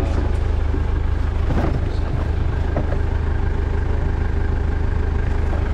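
A vehicle engine running with a steady, even low drone.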